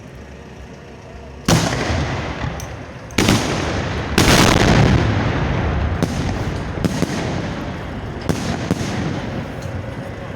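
Fireworks salute being fired at close range: a sharp bang about a second and a half in, another a couple of seconds later, then a longer run of bangs and crackling that slowly fades, with a few more sharp cracks near the end.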